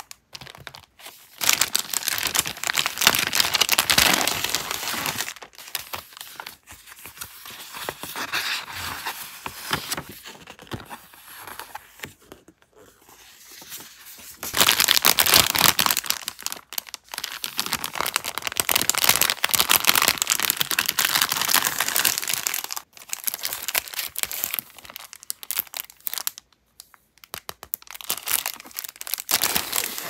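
Packaging crinkling as a stationery haul package is handled and unwrapped. It is loudest in two long stretches, a couple of seconds in and again around the middle, with quieter rustling between.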